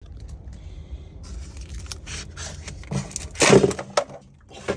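Plastic cup of ice being worked free of a paper cup and handled, with scraping and crackling strokes, the loudest about three and a half seconds in, then sharp knocks as it is set down on the table.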